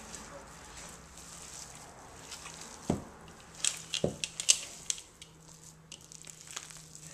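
Hands kneading and squishing a raw ground beef mixture in a plastic bowl, with wet squelching, two dull knocks about three and four seconds in, and a quick run of sharp clicks around the fourth second.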